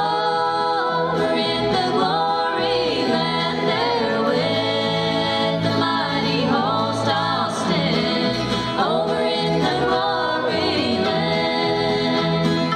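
Live country gospel band: a woman singing lead over strummed acoustic guitars, a bass line and other plucked strings.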